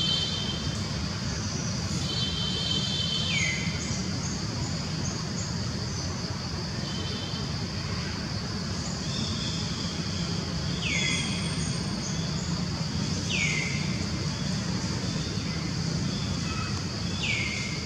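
Outdoor woodland ambience: a steady low rumble and a constant high drone, with bird calls every few seconds, several of them quick whistles sliding down in pitch and a few short trills.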